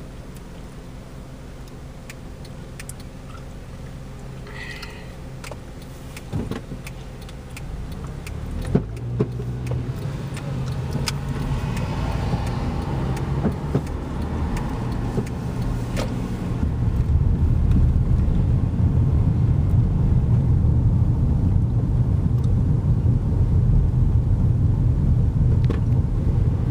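Car driving, heard from inside the cabin: a low engine and road rumble, quiet at first while the car waits at a red light, then growing louder as it pulls away and picks up speed, with a few sharp clicks about six to nine seconds in.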